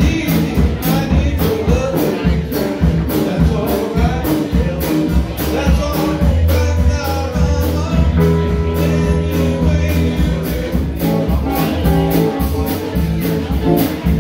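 Live blues-rock band playing: electric guitars, electric bass and a drum kit keeping a steady beat on the cymbals.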